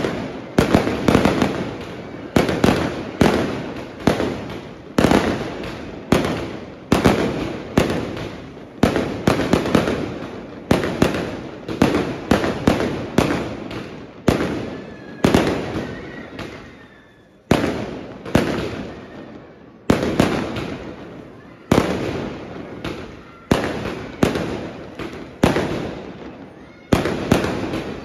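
A multi-shot fireworks cake firing aerial shells: a rapid string of sharp bangs, about two or three a second, each with an echoing tail. A little past halfway the shots pause briefly, then resume.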